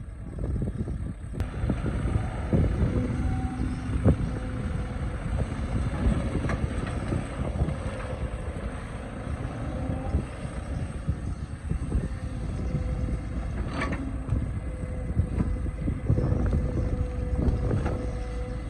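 Excavator's diesel engine running under load, with a hydraulic whine that comes and goes and a few sharp knocks, the strongest about four seconds in and near fourteen seconds.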